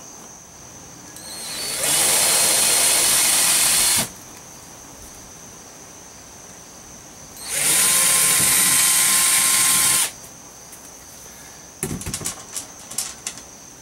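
Power drill running in two bursts of about two and a half seconds each, the first winding up gradually, the second holding a steady whine, as it works holes and screws into a sailboat's fiberglass bulkhead. A few light clicks and rattles follow near the end.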